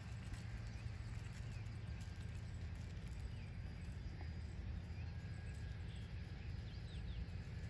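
Wind buffeting the microphone outdoors: a steady low rumble that gusts unevenly. A few faint bird chirps come through in the second half.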